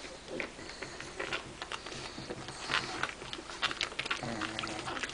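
Three-and-a-half-week-old pug puppies being held, a patter of small clicks, snuffles and mouth noises, with a faint low drawn-out tone about four seconds in.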